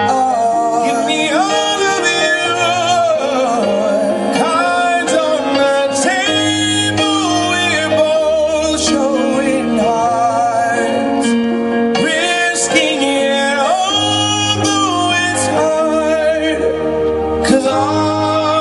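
A song: a voice sings a melody with vibrato over instrumental backing and a bass line.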